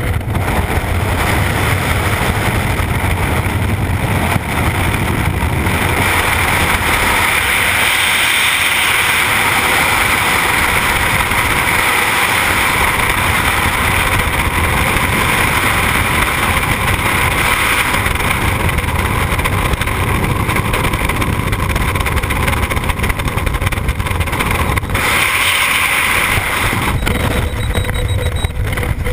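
Loud, steady rushing of freefall wind buffeting a helmet-mounted camera's microphone during a skydive. It eases a little near the end as the parachute opens.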